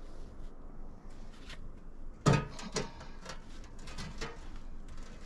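A scatter of light knocks and clatters, with a heavier thump about two seconds in.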